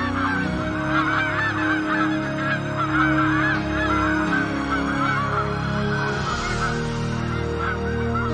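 A large flock of snow geese calling, a dense chorus of many overlapping honks that never lets up, over soft sustained music chords.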